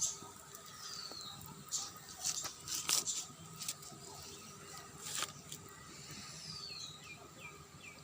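Birds chirping, with a couple of short falling whistled calls and a few sharp taps or clicks among them.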